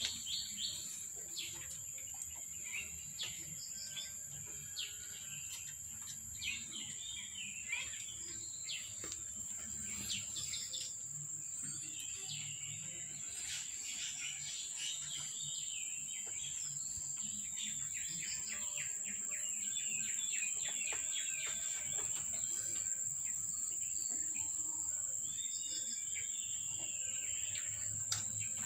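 Birds chirping and twittering in many short calls, over a steady high-pitched insect drone.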